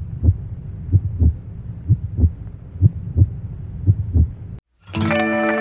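Heartbeat sound effect: a slow double thump repeating evenly about once a second, stopping about four and a half seconds in. After a brief silence, music with sustained chord tones comes in near the end.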